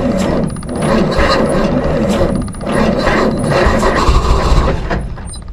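The 779-cubic-inch Waukesha straight-six of a 1952 Oren fire truck turning over and firing, running roughly with a heavy rumble that swells and dips about once a second. It dies away near the end.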